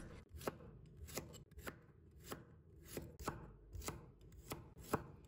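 Cleaver chopping peeled garlic cloves on a wooden cutting board: light, sharp knocks of the blade on the board, about two a second.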